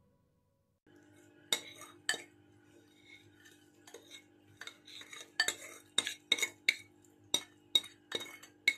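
Spoon clinking and scraping against a bowl and metal basin as thick sauce is scooped out: two sharp clinks early, then a run of about two clinks a second, over a faint steady hum.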